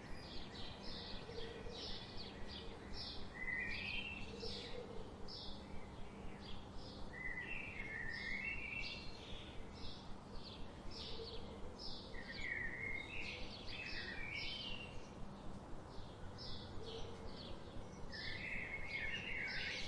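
Birds chirping: short high chirps repeating about two or three times a second, with lower warbled phrases breaking in every few seconds.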